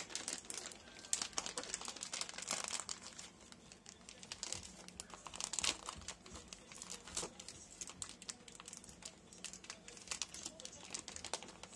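Thin plastic shipping bag crinkling and rustling as it is handled, the crackles thickest in the first half and thinning out later.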